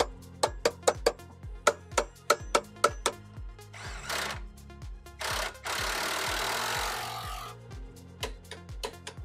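Bauer 20V cordless impact wrench running a shock's lower mount bolt: a short burst about four seconds in, another a second later, then a steady run of about two seconds. Background music with a steady beat plays throughout.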